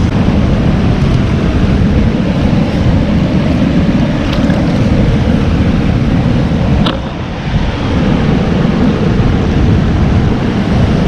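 Steady rush of a river running over rocks, mixed with wind on the microphone. There is a faint click about four seconds in and another about seven seconds in.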